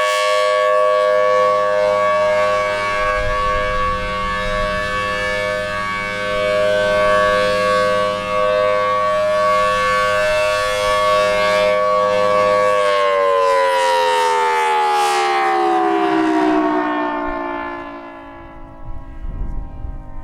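Federal Signal Thunderbolt 1000T B-series outdoor warning siren sounding its steady alert chord, swelling and fading slightly as it rotates, then winding down about 13 seconds in, its pitch gliding down and dying away over about five seconds. Wind rumbles on the microphone underneath.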